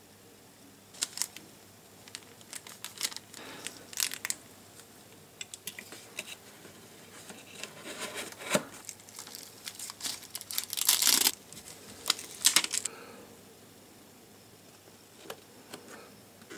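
A kraft cardboard gift box being handled and closed by hand: the cardboard scraping and rustling, with scattered taps and clicks and a louder, longer scrape about two-thirds of the way through.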